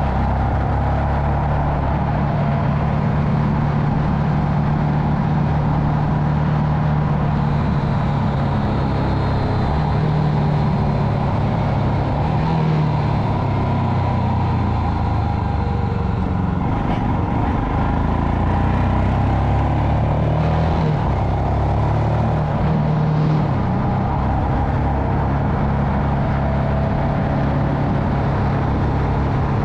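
Royal Enfield Himalayan's 411 cc single-cylinder engine running at a slow cruise, heard from the riding motorcycle over steady wind and road noise. The engine note shifts several times around the middle as the throttle changes.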